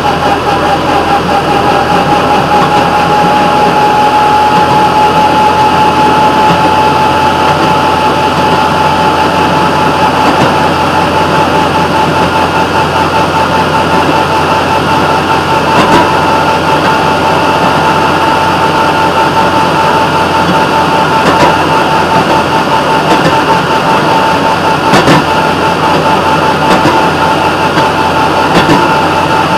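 Railroad motorcar (speeder) running along the track: steady engine and wheel-on-rail noise with a constant whining tone, and a few sharp clicks near the middle and toward the end.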